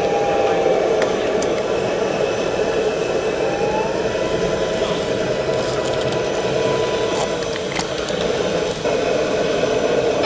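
Radio-controlled model Schlüter tractor's drive motors and gearboxes whirring steadily as it crawls across the soil. A thin whine rises in pitch about four seconds in and holds there for several seconds.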